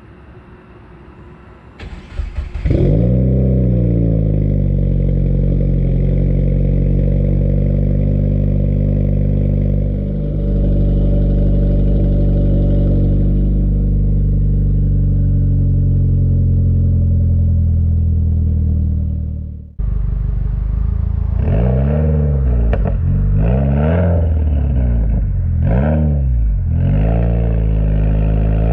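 2015 Subaru WRX turbocharged 2.0-litre flat-four with a stage 2 exhaust: the starter cranks briefly and the engine catches about three seconds in, then idles high and steady, its pitch easing down a little. After a sudden break about twenty seconds in, the engine is revved in a series of quick throttle blips, each rising and falling.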